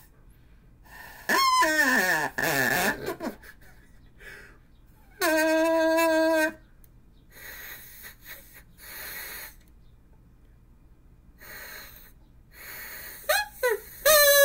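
Homemade plastic drinking-straw reed instruments, the flattened V-cut ends buzzing as they are blown, giving loud reedy honks. One note slides down in pitch about a second in, a steady buzzing note sounds around the middle, and short wavering notes come near the end, with quieter breathy attempts in between.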